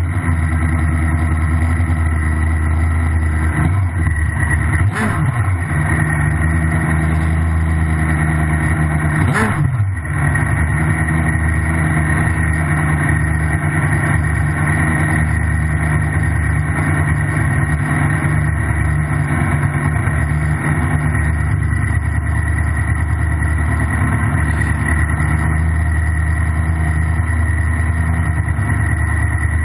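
Drag-racing motorcycle engine idling steadily at the starting line, heard close up from a camera mounted on the bike's tail; its pitch briefly shifts twice, around four and nine seconds in.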